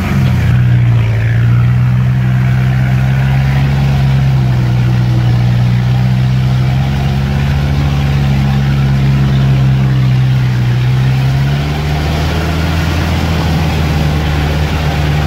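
Off-road vehicle's engine running at a steady low speed, heard from inside the cab. Its note drops just after the start, holds steady, then rises again about twelve seconds in.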